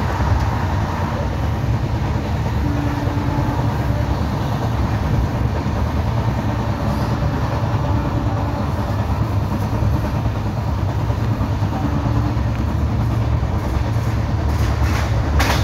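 LHB passenger coach running at speed, heard from on board: a steady, loud rumble of wheels on rail with clickety-clack. It carries the wheel knocking that the uploader calls flat-wheel sound, and a few sharp clicks come near the end.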